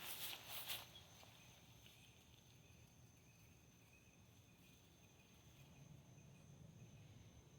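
Near silence with a faint, steady, high insect trill, and a few soft brief rustles in the first second.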